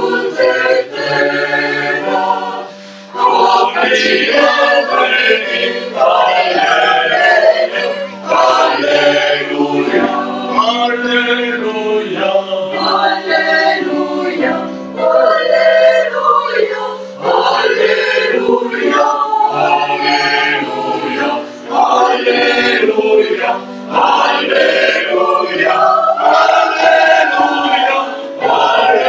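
Mixed adult choir of men's and women's voices singing a Christmas song, in phrases broken by short breaths.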